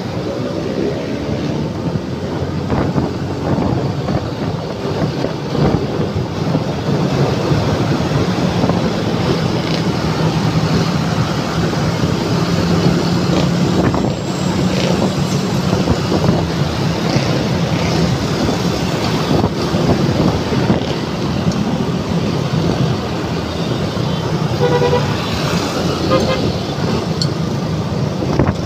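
Motor scooter engine running steadily while riding in dense traffic, with wind and road noise on the handlebar microphone and the sound of surrounding motorcycles and cars. Near the end a vehicle horn gives a few short beeps.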